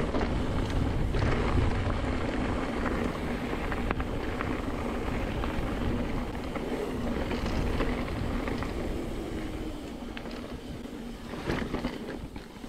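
Mountain bike rolling downhill on a dirt singletrack: wind buffeting the camera microphone over tyres rumbling on dirt and loose gravel, with a few sharp clatters near the end as the bike rolls over rocks.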